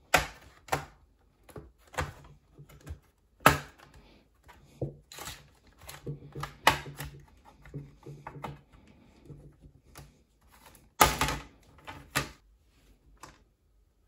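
Plastic snap clips of a laptop's bottom cover popping free as plastic pry picks are twisted along the seam: a series of sharp, irregular clicks and cracks, the loudest cluster about eleven seconds in.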